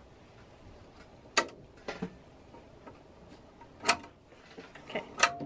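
About six scattered sharp clicks and taps, spaced unevenly, from hands handling the parts of an embroidery machine. Two of them, about a second and a half in and near four seconds, stand out.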